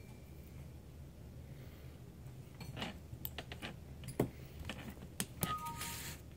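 Small metal clicks and clinks from handling a tiny Phillips screwdriver and the laptop's small screws, starting a few seconds in, with a brief metallic ring near the end; a low steady hum underneath.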